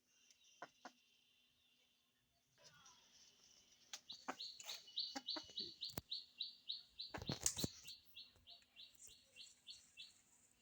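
A bird chirping: a quick, even series of high chirps, about four a second, lasting several seconds. A few faint knocks come with it, the loudest a brief clatter about halfway through.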